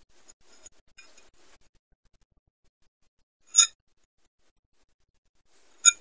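A metal fork scraping lightly in a ceramic bowl of sardines, then two sharp ringing clinks of the fork striking the bowl, the second just over two seconds after the first.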